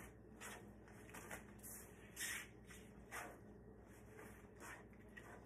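Faint rustling of a gallon-size bag as broccoli florets are put into it, in several short bursts.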